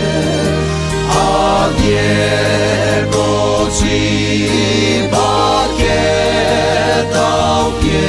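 Male vocal group singing a gospel song in harmony with instrumental backing: a sustained bass line and a regular percussive beat.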